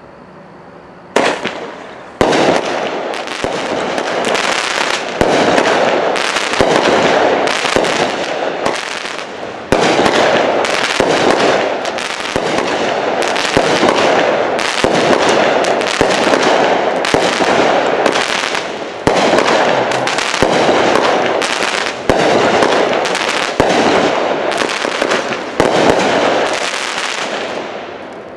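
A 200-gram, 19-shot Phantom Fireworks 'Machine Gun Shell' cake firing: the first shot goes off about a second in, then shot after shot, each followed by a rapid rattle of small reports, running almost without a break and dying away near the end.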